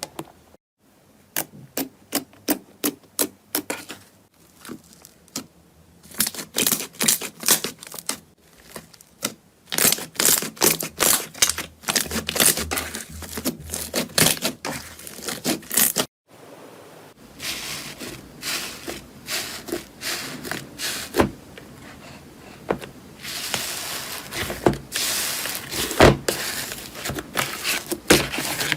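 Slime being pressed and squeezed by hand, giving rapid runs of crackling clicks and pops that break off briefly twice.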